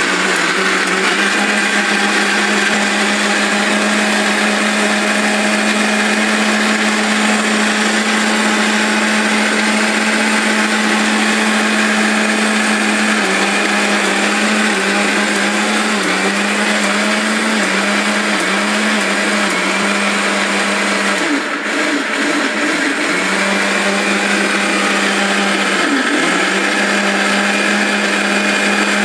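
750-watt mixer grinder running continuously, its blade grinding ginger and garlic with a little water into paste. The steady motor whine starts to waver and dip in pitch about halfway through, with a brief drop a few seconds later.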